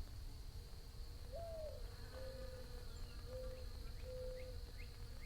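Bees buzzing in a steady, faint hum while a bird coos: one sliding note about a second in, then three shorter level notes. A few faint high chirps come near the end.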